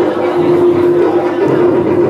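Loud music playing, with a steady held note running through it.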